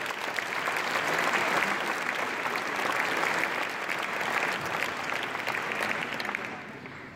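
A large audience applauding, a dense steady clapping that starts to die away near the end.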